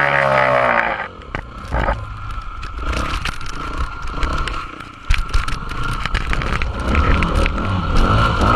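2003 Yamaha YZ250F four-stroke single-cylinder dirt bike engine, its pitch falling as the revs drop in the first second. It then runs quieter before getting louder again about five seconds in, with rough rumble and wind noise on the bike-mounted camera.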